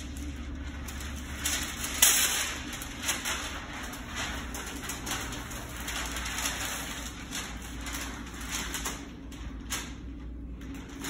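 Masking paper and tape being handled on a panel: irregular crinkling and rustling, with a sharp crackle about two seconds in.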